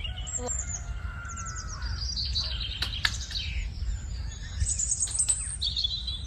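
Several birds chirping and trilling in quick overlapping calls over a steady low background noise, with a sharp click about three seconds in.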